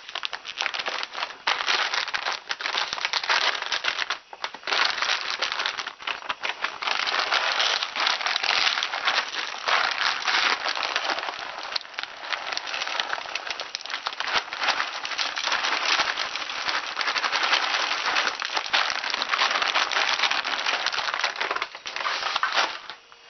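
Plastic bag crinkling and crackling close to the microphone, dense and continuous, while dry cat food is got out for the bowls, stopping suddenly near the end.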